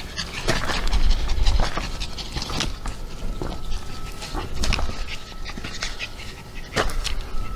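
Dog panting, with scattered sharp footsteps on a stony trail.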